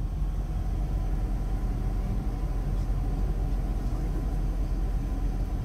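Steady low rumble of a moving tour coach, its engine and road noise heard from inside the passenger cabin.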